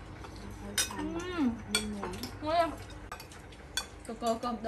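Metal spoons and forks clinking and scraping against ceramic plates and bowls as several people eat, with a few sharp clinks spread through.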